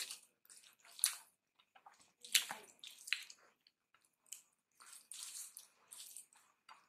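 Eating sounds: rice and dal squished together by hand and chewed, a scatter of soft wet clicks and smacks with a few sharper ones.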